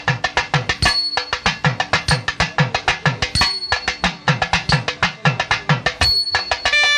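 Percussion-led music: a hand drum plays fast, even strokes, about five a second, with low strokes that fall in pitch about twice a second, over a steady held tone. Right at the end a melody instrument comes in with a wavering line.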